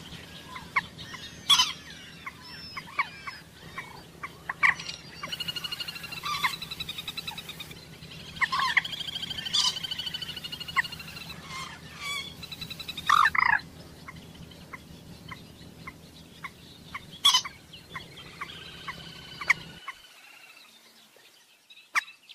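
Common moorhen calling: sharp, abrupt call notes mixed with rattling trilled series, the loudest notes spaced a few seconds apart. A faint low hum runs under the calls and stops near the end.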